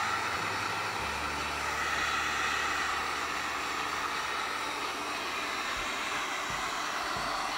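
Electric heat gun running steadily, its blower giving a constant hiss as it blows hot air over vinyl wrap to set it.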